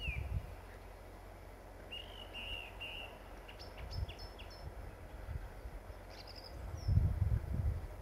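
Nightingale singing in short phrases: a run of four repeated whistled notes about two seconds in, then higher, sharper notes. A low rumble near the end.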